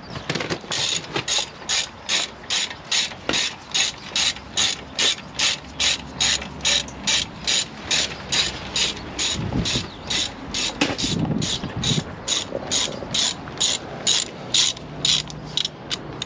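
Ratchet wrench clicking in quick, even strokes, about two and a half a second, as it undoes the brake caliper slider pin bolts on a Land Rover Freelander 2's front brake.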